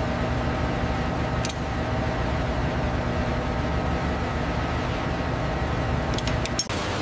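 Steady mechanical hum and air-handling noise of a large factory floor, with a few faint steady tones in it. A few light clicks come about one and a half seconds in and again near the end, where the sound briefly drops out.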